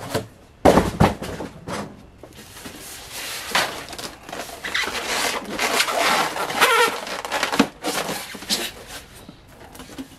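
Styrofoam packing blocks creaking, squeaking and scraping as they are handled and pulled apart, with a loud thump about a second in.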